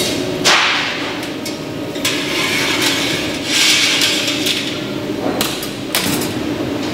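Sharp knocks and clinks of hard objects over a steady hum. The loudest knock comes about half a second in, there is more clatter around the middle, and two more knocks come near the end.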